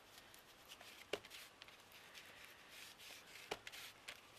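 Faint scratchy rubbing of a hand-held ink applicator worked along the edges of card stock to darken them, with two light clicks, about a second in and again near the end.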